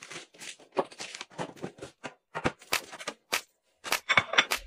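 Close-up kitchen handling sounds: a quick, irregular run of light taps, clicks and rustles as plastic and glass food containers are picked up and set down.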